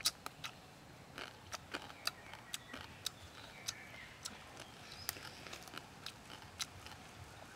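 Close-miked eating sounds: a person chewing and crunching crispy cooked quail, giving many sharp, irregular crackles and smacks.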